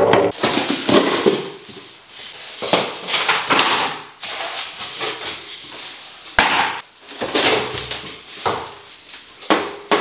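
An old floor being torn out by hand: irregular knocks, cracks and scraping of demolition work, with a sharp bang a little past the middle.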